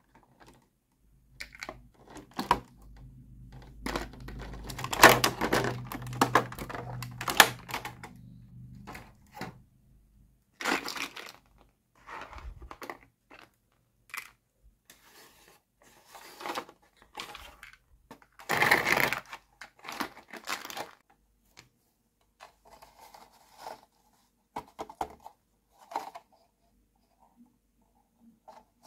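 Handling of a plastic toy playset: a clear plastic blister tray crinkling and scraping, and small hard plastic furniture pieces and the house shell clicking and knocking together. The taps come irregularly with pauses, densest in the first third, with a loud rustling scrape a little past halfway.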